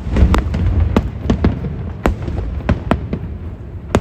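Aerial fireworks shells bursting: a rapid, irregular string of sharp bangs over a continuous low rumble.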